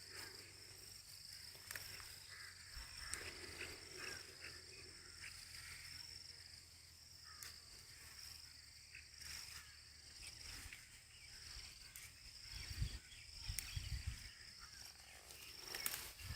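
Steady high-pitched insect chorus, with faint rustling and handling clicks, and a few low wind thumps on the microphone about thirteen seconds in.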